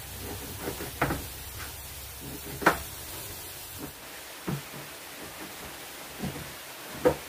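About five scattered knocks and clunks of kitchen work, the loudest a little under three seconds in, over a steady hiss of rain.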